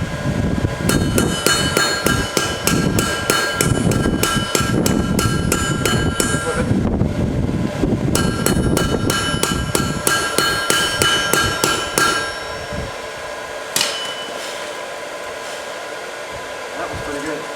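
Blacksmith's hand hammer striking hot steel on an anvil while forging a chisel, rapid repeated blows with the anvil ringing on each strike. The hammering comes in two runs with a short pause about seven seconds in, stops about twelve seconds in, and one last strike follows a couple of seconds later over a quieter steady background.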